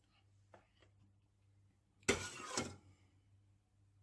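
A metal ladle scraping once against a steel pot while scooping tomato sauce, a short noisy scrape about two seconds in, over a faint low steady hum.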